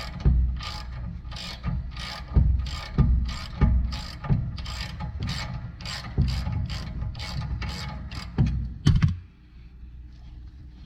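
Hand ratchet wrench worked back and forth in repeated strokes, about two a second, its pawl clicking with each swing, driving a fastener during rear shock absorber and coil spring work; the cranking stops abruptly about nine seconds in.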